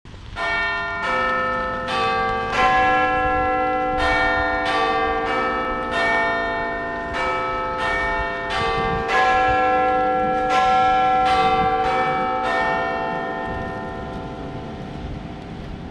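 Bells ringing a run of notes of different pitches, a new stroke roughly every half second to a second. Each note rings on over the next, and the sound dies away after the last strokes near the end.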